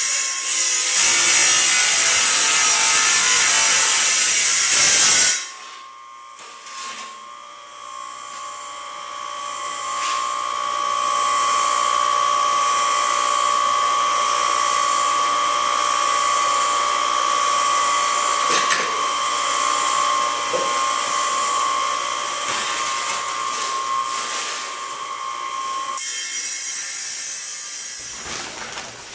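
Wet tile saw's diamond blade grinding through tile, the motor bogging down because the saw is low on water. About five seconds in the cut stops and the motor runs on freely with a steady whine and a few knocks; near the end the blade goes back into the tile, more quietly.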